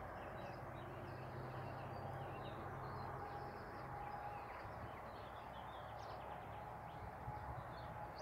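Continuous rush of passing ring-road traffic, with many short bird chirps and tweets over it.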